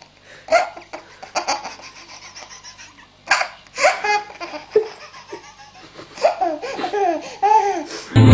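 A baby laughing hard in repeated bursts of belly laughs, with short gaps between them.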